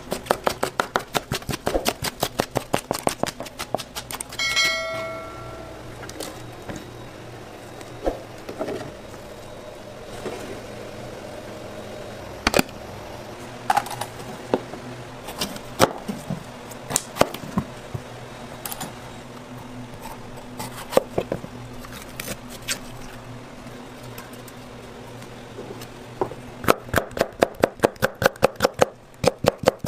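Chef's knife chopping peppers on a plastic cutting board: fast runs of cuts, about five a second, at the start and again near the end, with scattered single knocks of the blade between. A short high tone sounds once, about four seconds in.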